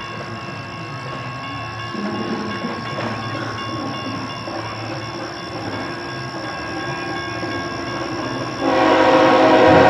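Approaching freight train, then the lead locomotive's air horn sounding a loud chord about a second before the end.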